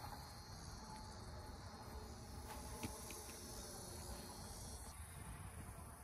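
Faint, steady high-pitched chirring of an insect chorus, with a few light ticks near the middle.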